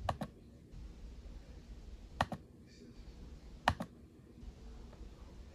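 Mouse-button clicks while working through a software installer on a laptop: three sharp clicks about a second and a half apart, the first and last each a quick double click.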